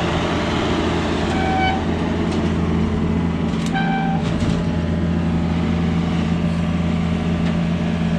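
Manitou skid steer's engine running steadily under work, with two short high beeps about one and a half and four seconds in.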